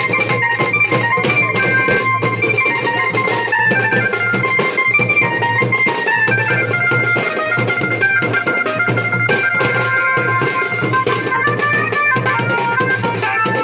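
Wedding band music: stick-beaten barrel drums (dhol) keep a fast, steady beat under an amplified organ-like melody of held, stepping notes played through horn loudspeakers.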